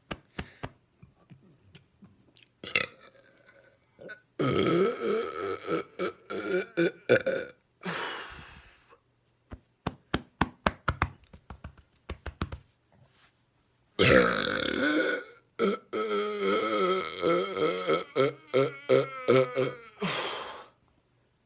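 A man's long, deliberate burps bringing up stuck swallowed air. The first runs about three seconds from four seconds in, with a shorter one after it. A run of small clicks follows, then a second long burp of about six seconds from fourteen seconds in.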